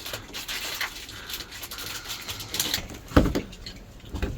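Handling noise from fitting work: scattered light clicks and rustling, with one louder knock about three seconds in.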